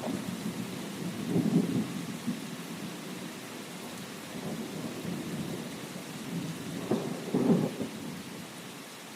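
Steady rain falling with low rolling thunder rumbling underneath, swelling about a second and a half in and again about seven seconds in, then fading.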